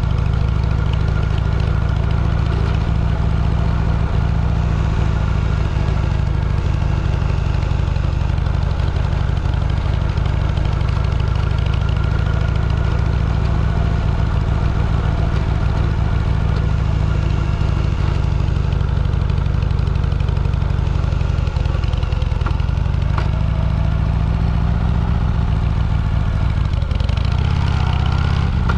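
Motorcycle engine running steadily while riding, with a heavy, unbroken low rumble.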